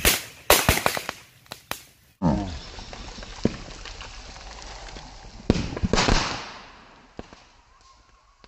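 Lumps of sodium metal exploding on pond water as the hydrogen they give off ignites: a series of sharp bangs and pops, several in quick succession in the first two seconds and a dense cluster a little past the middle. Between the bangs there is a steady hiss.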